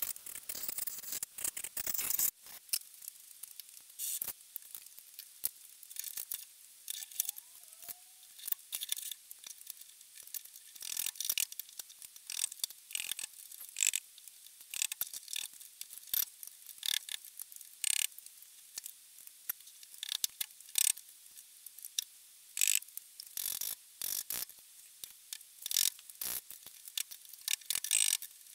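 Steel gears and rings on a lathe headstock spindle clinking and clicking irregularly as they are handled and slid onto the shaft during reassembly.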